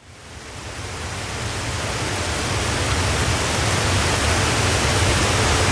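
Steady rushing noise with a low rumble underneath, fading in from silence and growing gradually louder.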